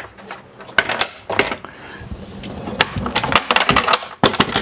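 Hinged wooden companionway door panels being folded and lifted into place: a run of irregular knocks and clicks of wooden panels, hinges and catches, busiest in the last second or two.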